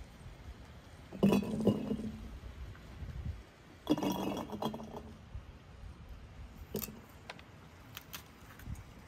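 Peeled garlic cloves dropped into large empty glass jars, clinking and rattling against the glass in two handfuls, about a second in and again about four seconds in. A few single sharp clicks follow later.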